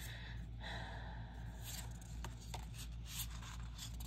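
Oracle cards being handled: a soft rustle of card stock sliding, then a few light clicks as cards are turned and set down, over a steady low hum.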